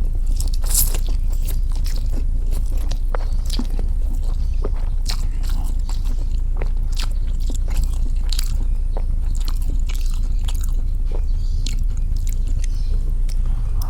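Close-up eating of fried noodles: chewing and biting with irregular small clicks and smacks, over a steady low hum.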